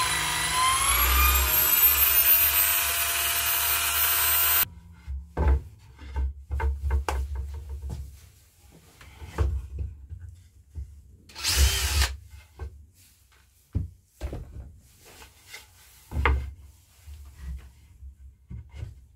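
Einhell variable-speed corded drill in a Wolfcraft drill stand running a 35 mm Forstner bit into a wooden board: the motor's whine drops in pitch as the bit bites, recovers, then stops abruptly about five seconds in. Knocks and clatter of wood and tools being handled follow, with a short loud burst a little past halfway.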